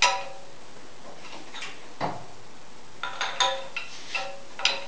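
Irregular sharp metal clinks that ring briefly, about eight in all and bunched together in the second half, with one duller knock about two seconds in; no engine running.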